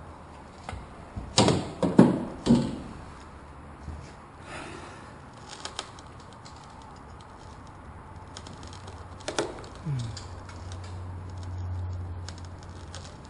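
Pipe knife scraping and knocking as its blade is worked through the urethane bead holding a truck's back glass. Several sharp strokes come close together a couple of seconds in, followed by scattered softer ones.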